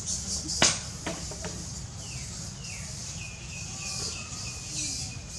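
High-pitched animal calls: a few short falling squeaks, then a run of short repeated chirps, over a pulsing high hiss. A sharp click comes about half a second in, with two fainter ones after it.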